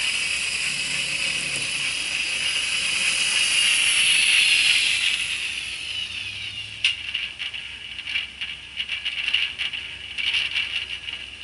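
Arnold N-scale model street car with a custom DCC sound decoder, giving a steady high electric whine that glides down about halfway through as the train slows to a stop. It is followed by irregular crackling clicks that grow fainter.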